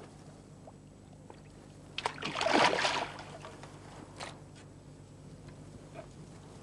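A hooked carp thrashing and splashing at the surface as it is drawn into a landing net, with a burst of splashing about two seconds in that lasts about a second. A short sharp knock follows a little later.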